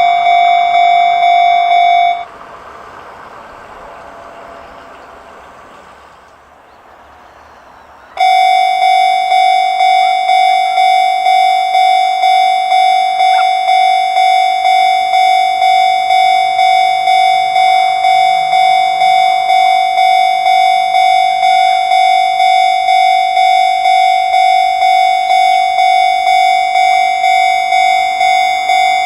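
Japanese railway level-crossing alarm, the electronic 'Chichibu' warning tone, ringing in a steady, even repeat of about two strokes a second. It stops about two seconds in and, after a few quieter seconds, starts again about eight seconds in and keeps ringing.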